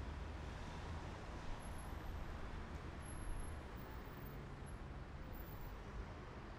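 Steady road noise of a car travelling at highway speed, heard from inside the car: a low rumble from the tyres and engine with a hiss above it.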